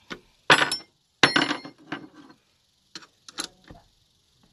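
Metal clinks and taps of a battery terminal clamp and spanner being fitted and tightened onto a car battery's post. Two loud clinks with a short ringing come in the first second and a half, then a few lighter taps.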